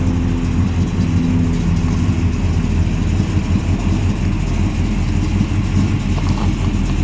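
Big-block V8 (a 455 Oldsmobile) idling steadily through dual exhaust with a low, even rumble.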